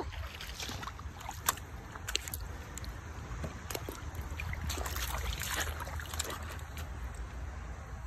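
Wading in a shallow, rocky creek: water sloshing and trickling around the feet, with scattered short knocks and a low rumble of wind on the phone's microphone.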